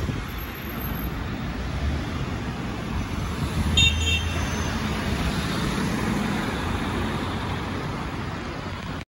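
Steady low engine rumble outdoors, with a short high toot about four seconds in.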